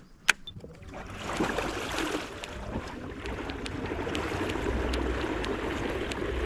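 A kayak moving through the water: a single sharp click, then a steady rush of water along the hull that builds over the first couple of seconds and holds.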